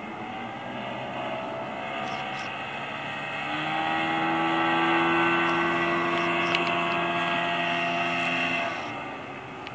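Mariner 40 HP two-cylinder outboard motor running at speed on a jon boat, a steady engine tone that grows louder through the middle and drops off near the end.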